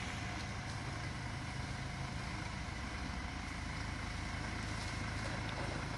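Hyundai Terracan SUV's engine running low and steady as it creeps down a steep dirt slope.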